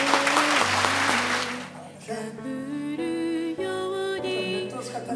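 An audience clapping, fading out about a second and a half in, over music that carries on alone afterwards.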